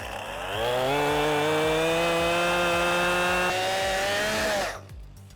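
Gas chainsaw cutting into a tree. It revs up over about a second, runs at a steady high pitch for about three and a half seconds, then drops off near the end.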